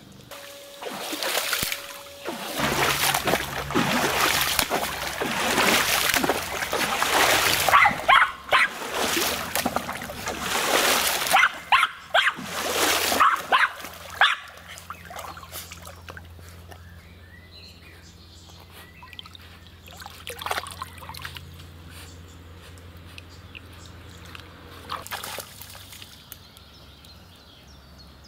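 A West Highland White Terrier wading and paddling through a shallow creek. The water splashes loudly and choppily for the first half, then settles to a quieter trickle with only an occasional splash.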